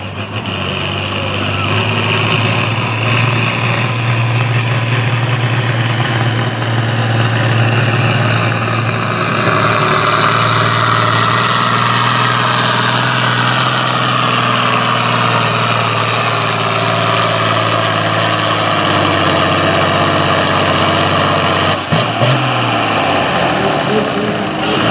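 A farm-stock pulling tractor's diesel engine runs hard and steadily under load while pulling the sled, its pitch slowly falling through the middle. The sound changes abruptly about three seconds before the end.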